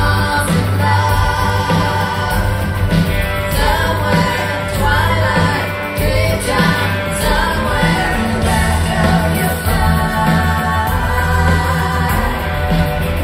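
Live rock band playing a song with a woman singing lead over steady bass and drums, heard from the audience.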